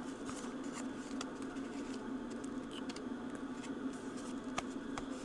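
Trading-card pack being handled and opened: scattered light clicks and rustles of packaging and cards, over a steady low background hum.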